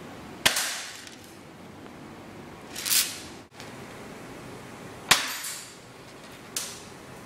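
Spring airsoft shotgun (325 FPS) firing twice: two sharp snaps about four and a half seconds apart, each with a short echo in the garage. A softer, rising noise comes about halfway between them, and a fainter one near the end.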